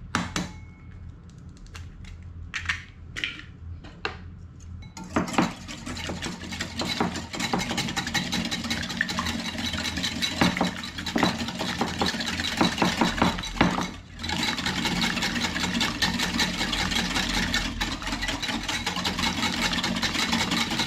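Eggs cracked into a ceramic bowl, with a few light clicks, then beaten with a wire balloon whisk. From about five seconds in the whisk makes a fast, steady clatter against the sides of the bowl, pausing briefly once partway through.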